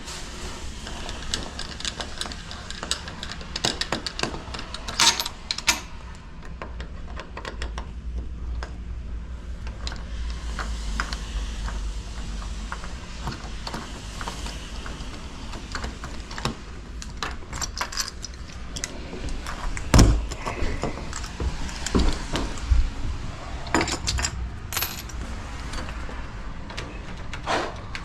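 Small metal lock parts and tools clinking and clicking as they are handled, with irregular taps and a sharper knock about twenty seconds in.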